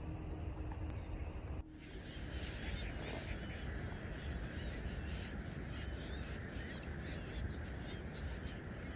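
Many birds calling over one another in quick, overlapping short cries above a low rumble. A different steady low hum cuts off suddenly about a second and a half in.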